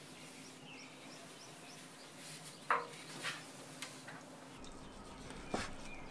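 Metal tongs tossing fettuccine in a thick cream sauce in a stainless steel frying pan: quiet wet stirring with a short sharp clink about halfway through. Near the end a knife chops once on a wooden board.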